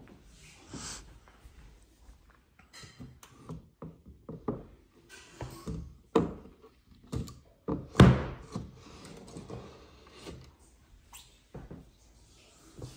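A series of irregular knocks and thuds, the loudest one about eight seconds in.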